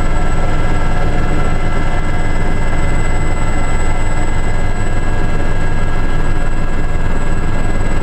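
Steady cabin noise inside an Aérospatiale Gazelle helicopter in flight: a loud low rumble from the rotor and transmission, with the turboshaft engine's steady whine running as several high tones.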